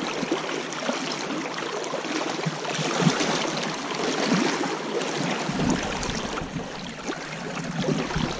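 River water rushing and splashing around a landing net holding a king salmon, with a sharper splash about three seconds in.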